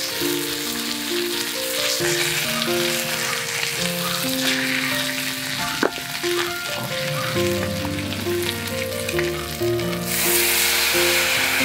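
Pork spare ribs sizzling in a cast-iron skillet. About ten seconds in, the sizzle jumps to a much louder hiss as white wine is poured into the hot pan to steam them.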